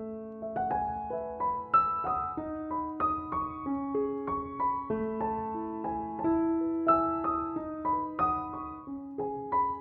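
Background piano music: a slow, gentle melody of single struck notes over held lower notes.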